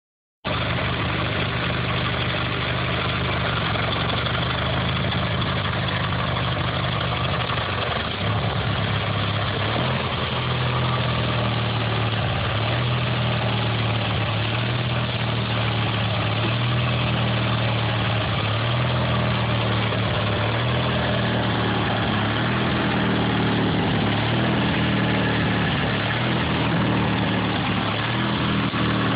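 18 hp engine of a Toro Aero Seeder 84 idling steadily, its note shifting slightly about eight seconds in.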